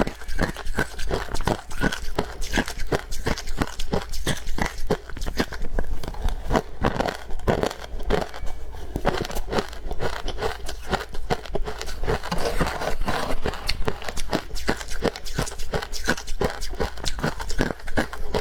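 Close-miked chewing of freezer frost: a steady run of crisp crunches, about four a second.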